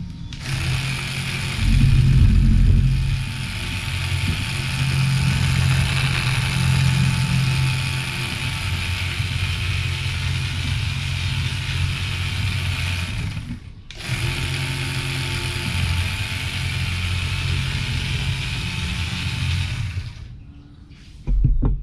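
Small electric motors of a homemade RC model tractor running while it drives with its rotavator attached, a steady whir with gear noise. The sound breaks off briefly about two-thirds of the way through, then runs on and fades near the end, with a short low knock just before the end.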